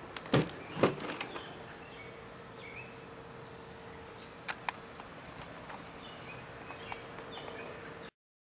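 Husqvarna Automower 450X robotic lawnmower running with a faint, steady hum, and a few sharp clicks, the loudest in the first second. Birds chirp over it, and the sound cuts off suddenly about eight seconds in.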